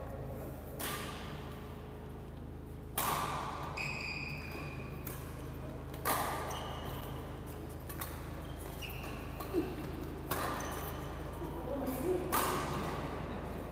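Badminton rally: rackets striking the shuttlecock, five sharp hits each with an echoing tail in a large hall, with short high squeaks of shoes on the court floor between them.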